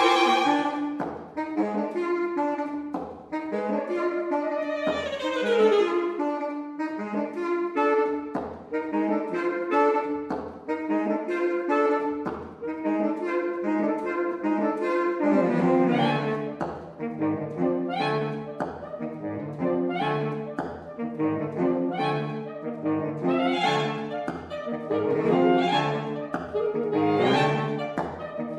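Saxophone quartet of soprano, alto, tenor and baritone saxophones playing contemporary concert music: fast, short, detached notes in several voices, with a sliding figure about five seconds in and the low voices filling in more heavily from about halfway.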